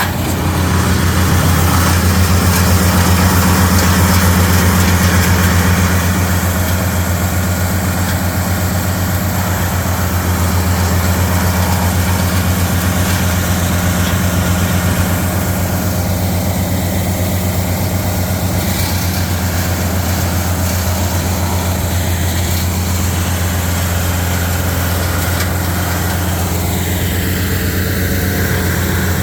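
Wood chipper's engine running steadily with a deep, even drone and no wood being chipped.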